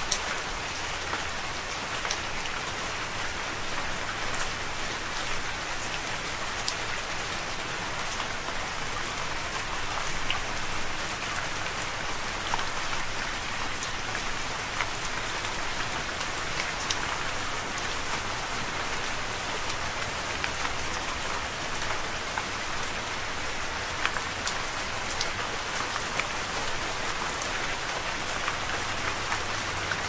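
Steady rain falling: an even hiss with scattered sharp taps of single drops.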